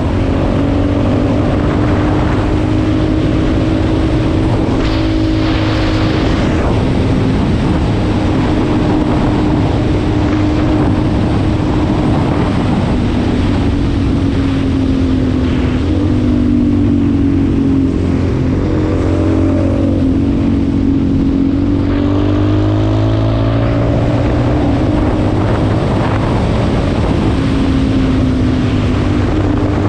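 Yamaha XTZ 250's single-cylinder four-stroke engine running at road speed, its pitch rising and falling with the throttle and dipping low about two-thirds of the way through before climbing again, over a steady rush of wind noise.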